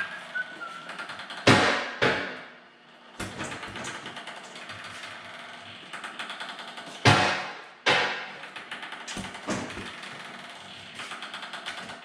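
MBO T49 buckle paper folder running at full speed on a letter fold: a fast, even clatter of sheets being fed and folded. It is broken by two pairs of loud knocks, about two seconds in and about seven seconds in, and eases off near the end.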